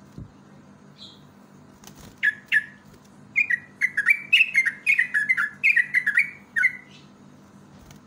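Yellow-vented bulbul singing: two short chirps, then a quick bubbly run of short, falling notes lasting about three seconds.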